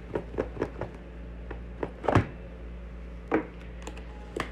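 Cardboard phone packaging being handled: a scatter of taps, knocks and scuffs as the outer sleeve comes off the rigid box and fingers work at the lid. The loudest knock comes a little after two seconds and another about three and a half seconds in, over a steady low hum.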